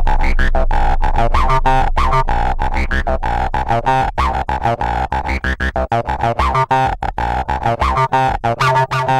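Electronic music with a synthesizer over a fast, chopped-up beat.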